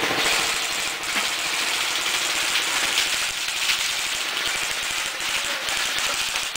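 Airsoft guns firing, a dense, steady rattle of rapid ticks.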